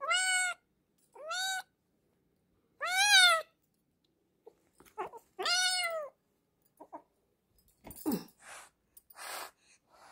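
A young kitten meowing loudly four times in the first six seconds, each meow rising then falling in pitch. A few short, quieter noises follow near the end.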